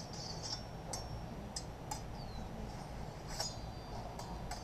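A few faint, sparse clicks and light clinks of sparring swords touching as two fencers engage, over a steady outdoor background hum.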